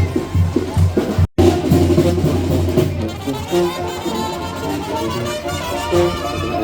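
Band music with drums and brass: a steady drum beat, a brief dropout just over a second in, then a brass melody.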